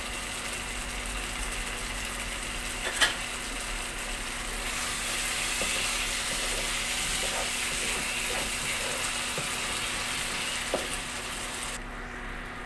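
Thick curry sizzling in a nonstick kadai while a wooden spatula stirs and scrapes through it, with one sharp knock on the pan about three seconds in. The high hiss drops away near the end.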